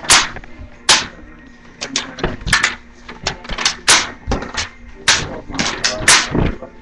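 An irregular series of short, sharp smacks, about twenty of them, sometimes several in a second.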